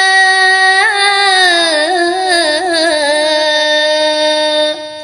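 A singer chanting a line of a Sinhala folk poem (jana kavi), drawing out one long held note that wavers in ornaments through the middle and breaks off near the end.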